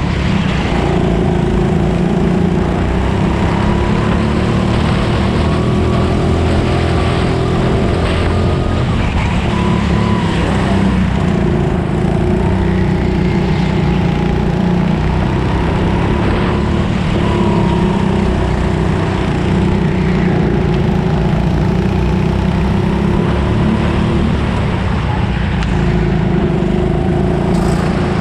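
Go-kart engine heard from onboard, running hard at racing speed, its pitch rising and falling over and over as the kart accelerates out of corners and lifts off into them.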